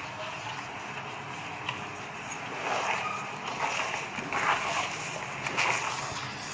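Thick wheat halwa simmering in an aluminium kadai, then a metal ladle stirring and scraping through it from about two and a half seconds in, making irregular wet sloshing strokes.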